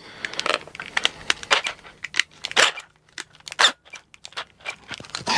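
Handling noise of small hardware: irregular clicks, rattles and crinkles at uneven spacing, as a drill bit is picked out and changed.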